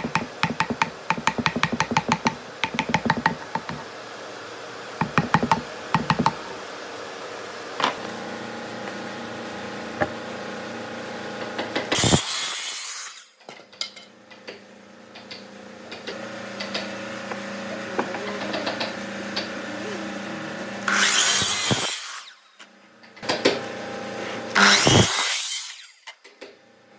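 A chisel working a notch in a log with quick, sharp clicking taps. Then an electric miter saw runs and cuts through pine boards, with loud cutting bursts about twelve seconds in and several more near the end, the motor humming between cuts.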